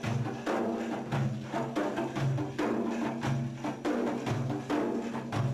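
Drums beating a steady rhythm, about two strokes a second with heavier low strokes among them, over a held low drone: an instrumental break between sung verses of an Arabic madih.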